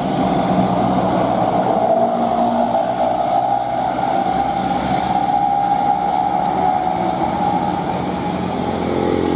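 Bus engine idling steadily, an even hum that does not rise or fall.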